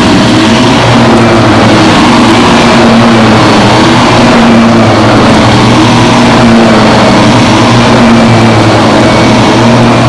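Bagless upright vacuum cleaner running steadily and loudly, a continuous motor drone whose pitch wavers slightly.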